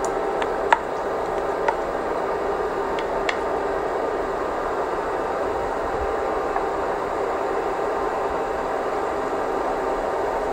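Steady whirring hiss from the stove as a pan of hot water and sliced onions heats, with a few faint ticks in the first few seconds.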